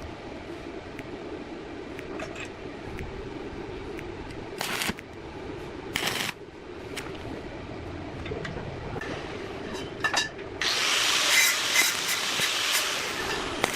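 Electric hand drill running steadily, with two short knocks in the middle; about three-quarters of the way through a louder harsh cutting noise sets in for a few seconds as the bit bites into the metal.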